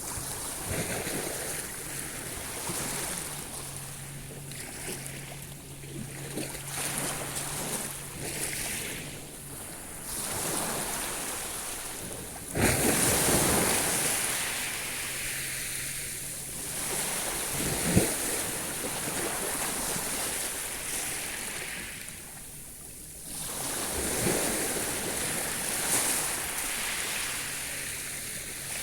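Sea waves breaking and washing in swells, one wave breaking suddenly and loudly a little before the middle. A faint low hum comes and goes underneath.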